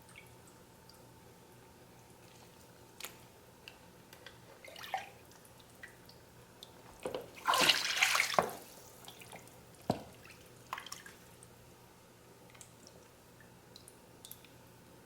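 Brine sloshing in a bowl as raw turkey pieces are moved around and covered: scattered drips and small knocks, with one louder splash of liquid lasting about a second and a half near the middle.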